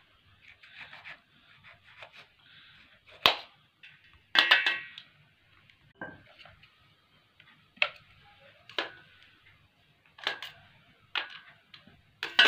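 Scattered knocks and clinks of a knife and cut grapefruit halves against a large stainless-steel bowl, about eight in all, a few of them ringing metallically.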